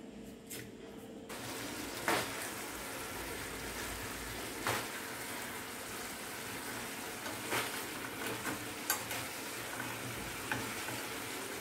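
Chicken drumsticks sizzling in a thick ketchup-and-soy sauce in a metal frying pan, the sizzle starting abruptly about a second in. A metal slotted spatula knocks and scrapes against the pan a few times as the pieces are turned in the sauce.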